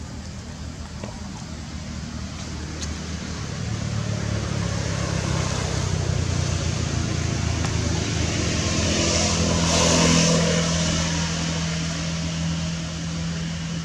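A motor vehicle's engine hum drawing closer, loudest about ten seconds in as it passes, then fading.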